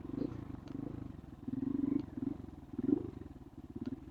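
A vehicle's engine running low and steady with a fast, even pulse, swelling briefly about a second and a half in and again near three seconds.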